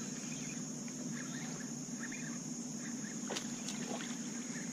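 Steady high drone of insects over a low, even background hum, with faint scattered chirps. About three seconds in, a single quick swish-click as a fishing rod is cast.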